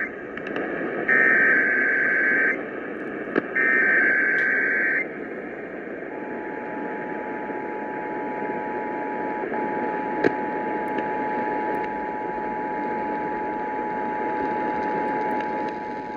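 Emergency Alert System broadcast test heard over a radio: two bursts of the digital SAME header data, a harsh buzzing warble about a second and a half each, then about six seconds in the EAS attention signal, a steady two-tone beep (853 and 960 Hz) that holds to the end. Radio static hiss runs underneath.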